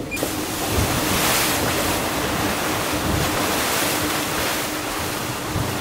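Wind and sea water rushing past an IMOCA 60 racing sailboat under way, with wind buffeting the microphone and a faint steady hum underneath.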